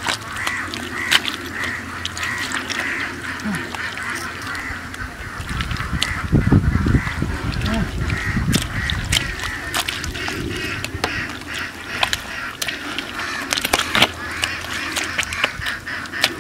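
Waterfowl honking and quacking over and over, about one to two calls a second, with sharp clicks scattered through.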